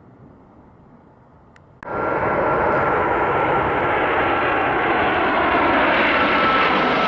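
Boeing 747-400 jet engines on landing approach, a steady roar with a high whine over it. The sound cuts in suddenly about two seconds in, loud from the start.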